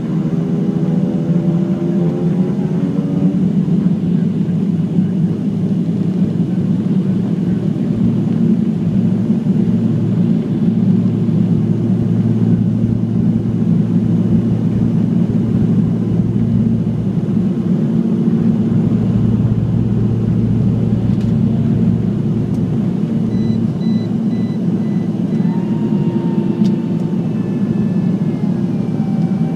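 Jet engine noise inside an airliner cabin during takeoff: the engines spool up, their tones rising over the first few seconds, then hold a loud steady rumble through the takeoff roll and initial climb. Thin high whining tones come in near the end.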